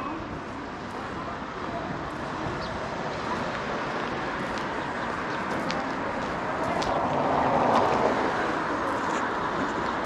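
Town street noise with a motor vehicle passing, loudest about three quarters of the way through, over faint voices.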